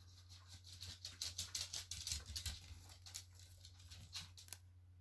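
Faint, irregular run of quick small taps and clicks, densest in the middle, over a steady low electrical hum.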